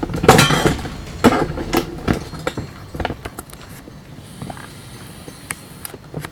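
Handling noise from a router and its cables being set up and plugged in: a short burst of rustling at the start, then a series of sharp clicks and knocks that thin out into scattered light taps.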